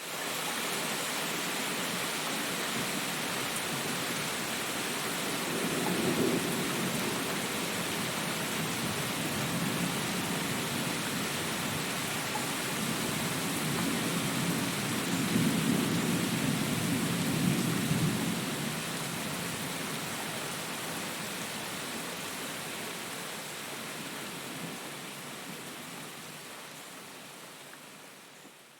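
Steady rain hiss with distant thunder rumbling twice: briefly about six seconds in, and longer from about fourteen to eighteen seconds. The rain fades out near the end.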